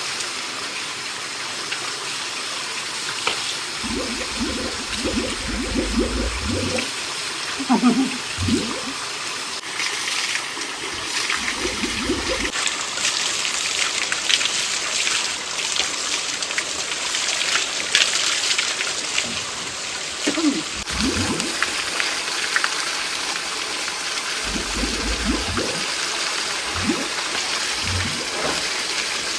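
Stream water running steadily, with repeated low sloshing splashes in the water.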